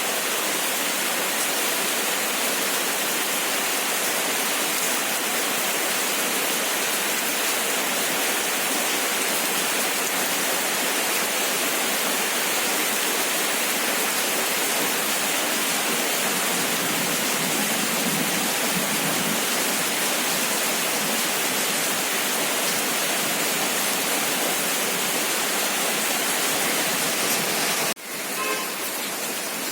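Heavy rain falling steadily, a dense even hiss. Near the end it cuts off for an instant and comes back slightly quieter.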